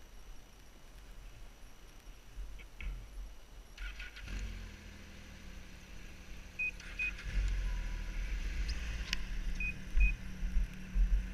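A snowmobile engine starts about four seconds in and settles into a steady idle. Two pairs of short electronic beeps come over it, and low buffeting hits the microphone in the second half.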